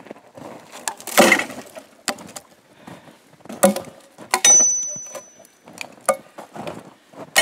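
A log dropped from the shoulder onto a sleigh load of logs: a loud wooden thud about a second in, followed by several sharper knocks as it settles against the other logs and the steel stakes. One knock, about four and a half seconds in, rings briefly like struck steel.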